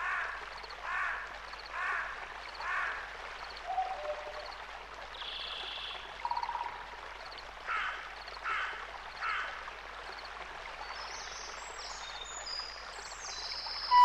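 Nature ambience: the steady rush of running water, with short animal calls repeated about once a second, four near the start and three more a little past halfway, and a few brief whistles between them.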